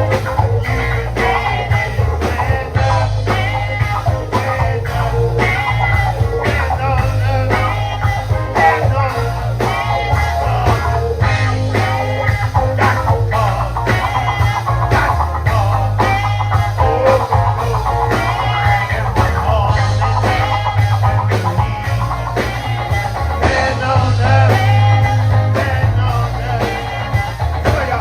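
Live gospel band music: electric guitar over bass guitar and drums with a steady beat.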